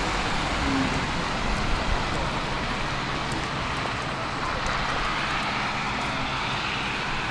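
Street traffic on a wet, slushy road: a steady hiss of tyres from passing cars and a van, with a low-floor tram rolling up on its tracks.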